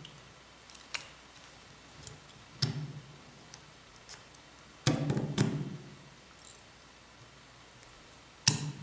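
Small clicks and knocks of 3D-printed plastic extruder parts and the spring-loaded lever being handled and fitted together. A few light ones come early, a louder cluster about five seconds in, and a sharp click near the end.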